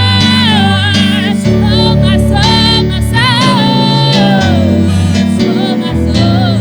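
Gospel music: a solo voice sings long, sliding, wavering phrases over held bass notes and guitar accompaniment.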